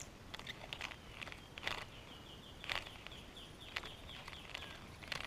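Faint outdoor quiet with scattered soft clicks and ticks, and a quick series of short high chirps through the middle.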